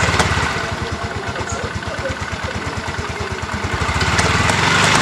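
Yamaha Mio i 125 scooter's single-cylinder engine idling just after starting, a little louder again near the end. The CVT transmission is running with the noise that the title puts down to worn transmission gear bearings.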